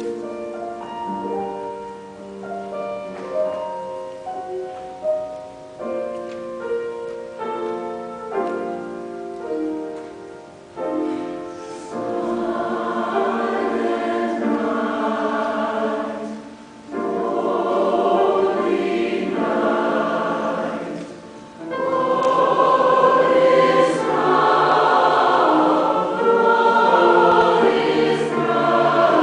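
Music: piano chords at first, then a choir comes in singing about eleven seconds in and grows louder.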